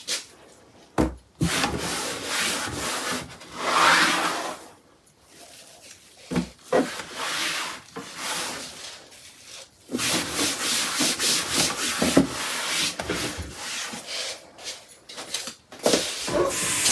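Microfibre cloth rubbing and scrubbing the bottom of a white laminated drawer in repeated wiping strokes, with a couple of sharp knocks.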